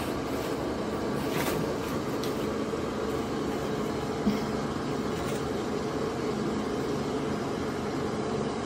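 Steady machine hum, like a running fan, with a few faint soft clicks.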